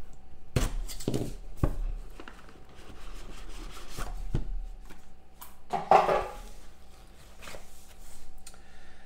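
Hands handling and opening a cardboard trading-card box: the box knocks several times against the table, and cardboard rubs and scrapes as the inner box is slid out and handled.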